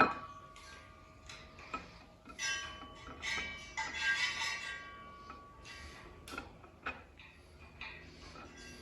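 Metal engine parts and tools clinking and ringing: a sharp clink at the start that rings on, then scattered clicks and a cluster of ringing metallic clinks about three to four seconds in.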